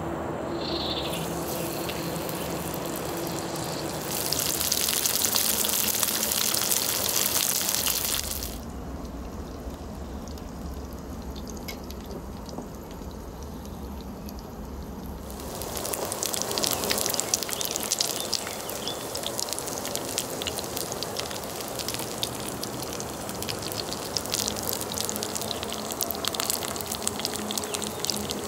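Meat sizzling and crackling on the grill plate of an electric 2-in-1 hotpot and grill cooker. The sound changes from stretch to stretch: a louder hiss about four to eight seconds in, a duller quieter spell, then steady dense crackling from about the middle on.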